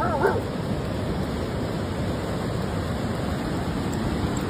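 Steady rushing noise, with a brief voice-like call in the first half-second.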